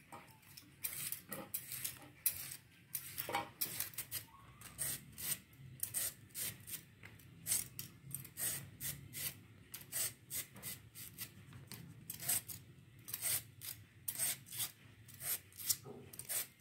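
Hand peeler shaving thin slices off a raw bamboo shoot into a plastic basket: short scraping strokes repeated about two a second.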